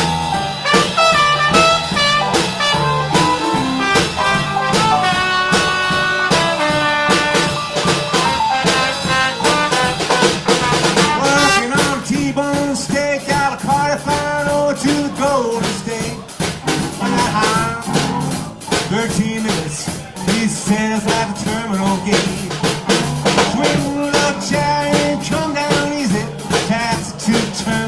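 Live band playing an instrumental break of a rock-and-roll tune: trumpet solo over piano and drums. The trumpet drops out about halfway, and the electric piano and drum kit carry on.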